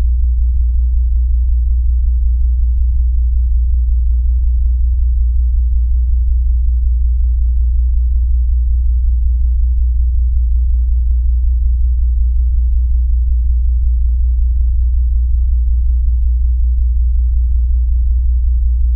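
Steady, deep low-pitched drone from the title-sequence soundtrack, holding at one level with no beat or change.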